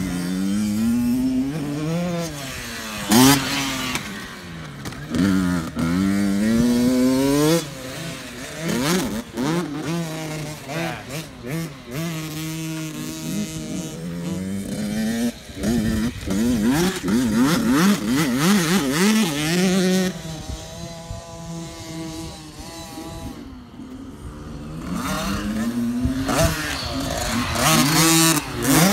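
Small dirt bike engines running on a motocross track, revving up and dropping back again and again as the riders accelerate, shift and brake. There is a brief loud knock about three seconds in, and the engine noise grows louder near the end as a bike comes closer.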